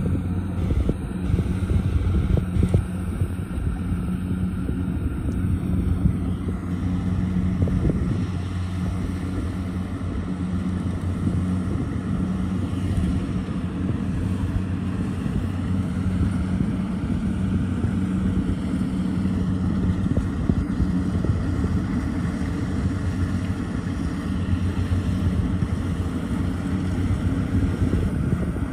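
Diesel engines of tracked rice-harvesting machinery running steadily under load, a continuous low hum.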